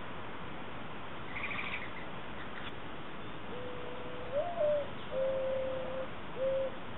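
Mourning dove cooing, starting about halfway through: a long low coo that swings up and falls back, followed by a steady coo and a short final one. Faint, brief chirping of a smaller bird comes a second or so in.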